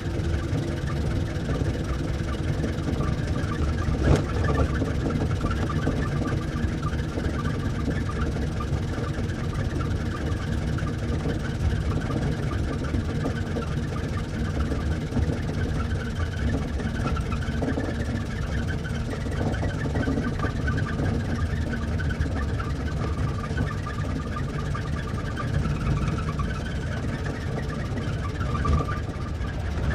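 Old car's engine running steadily, with one brief click about four seconds in.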